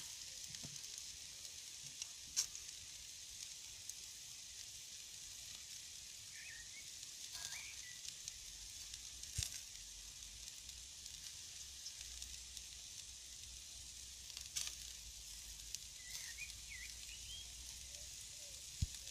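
Meat skewers in a wire grilling basket sizzling over embers: a steady soft hiss with a few sharp pops scattered through it.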